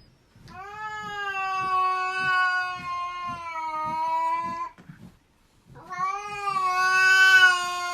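A cat yowling: two long, drawn-out cries held at a nearly steady pitch, the first lasting about four seconds, the second starting about six seconds in.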